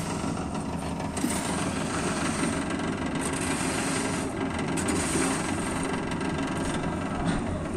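Engine-driven concrete-casting machinery running steadily with a continuous rumbling vibration while fresh concrete is placed for a roof slab.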